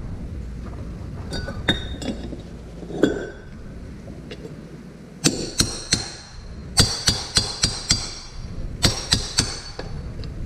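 Claw hammer striking a steel punch to drive the old, worn bearing out of an ATV front differential case: a few light knocks at first, then from about halfway a quick run of sharp, ringing metal-on-metal strikes in bursts.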